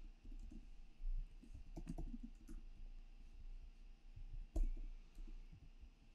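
Quiet computer keyboard typing: scattered, irregular keystrokes, with a small cluster about two seconds in and the loudest click a little past halfway.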